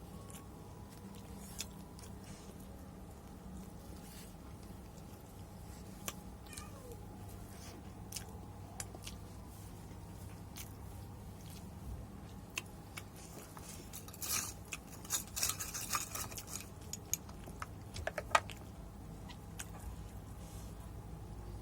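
A person chewing and biting into chicken, with scattered wet mouth clicks and a cluster of louder crunching about two-thirds of the way in.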